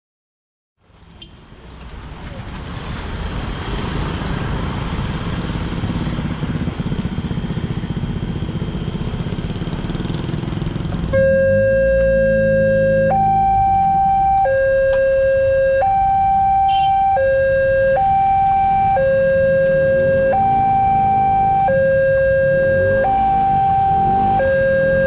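Steady road-traffic noise fades in, then about eleven seconds in a railway level-crossing warning siren starts: an electronic two-tone alarm alternating between a low and a higher tone, each held about a second and a half, and the loudest sound from then on.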